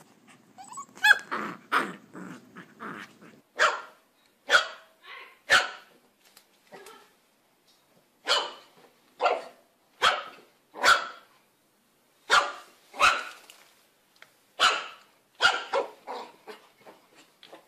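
A puppy barking: short, high yaps, singly and in pairs, with pauses of up to a second or so between them.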